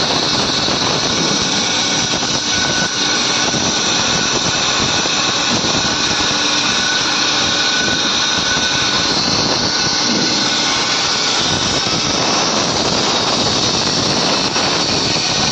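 Woodtech HB-600R band saw running while its blade cuts a curve through a thick softwood block: a steady, loud whir of blade and motor with a faint high whine.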